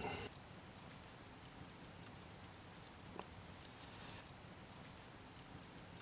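Hardwood coals burning down in a fireplace, faintly crackling with scattered small ticks and pops.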